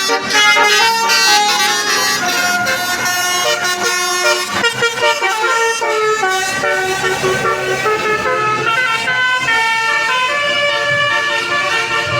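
Bus telolet horn (Basuri multi-tone air horn) playing a melody of quick stepped notes, one tune running straight into the next.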